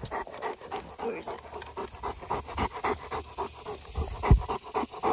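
Cane Corso panting hard and fast right at the microphone after running and sparring, about five quick breaths a second. A dull thump about four seconds in.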